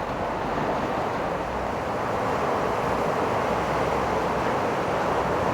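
Ocean surf breaking and washing onto the beach: a steady rush of waves that swells a little about two seconds in, with low wind rumble on the microphone.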